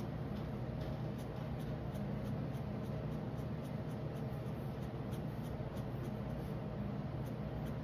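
Felt-tip pen scratching on paper in short, quick strokes as small squares are filled in with black, over a steady low hum.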